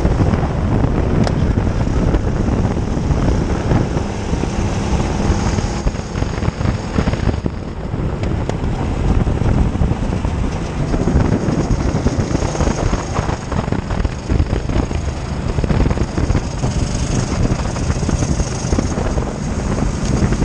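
Hire kart's engine running at racing speed, heard close up from a camera mounted on the kart, with wind buffeting the microphone. The engine eases briefly about seven seconds in, then picks up again.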